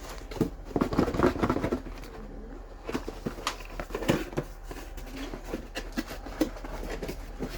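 Cardboard product box being opened by hand, with scattered taps, knocks and scrapes as the flaps and packed contents are handled.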